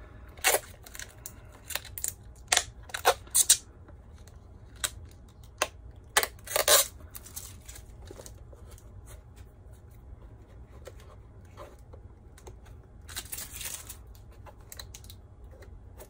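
Sharp plastic clicks and taps from a handheld radio-control transmitter being handled: about a dozen in the first seven seconds, the loudest near the seventh second. A brief rustle follows about 13 seconds in.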